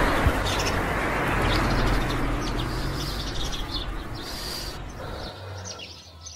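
Small birds chirping repeatedly in quick, high notes. They sit over a broad wash of background sound that is loudest at first and fades away over about five seconds.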